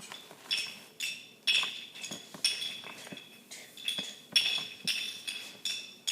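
Marionette walked across the floor, each step a clink with a short metallic ring, about two a second.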